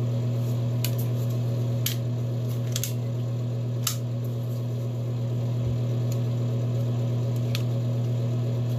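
Mainstays 4-inch rechargeable mini fan running with a steady hum, while its plastic tripod legs are unfolded with several small sharp clicks.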